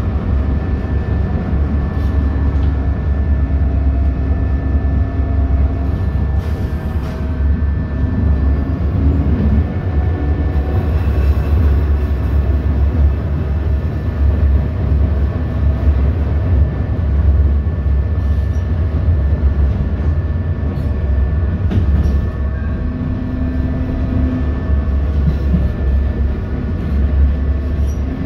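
Thyristor-controlled ASEA M31 articulated tram running along the track, heard from inside the passenger cabin: a steady low rumble of wheels on rail, with a faint electric traction-motor hum that comes and goes.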